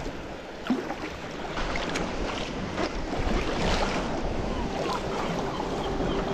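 Sea kayak being paddled close along sea cliffs: water splashing and lapping around the hull and paddle, with waves washing against the rocks and wind on the microphone. It gets a little louder about halfway through.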